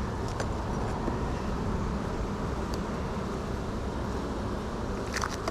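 Honeybees buzzing in a steady hum around an open hive, with a few light clicks of hive frames and boxes being handled.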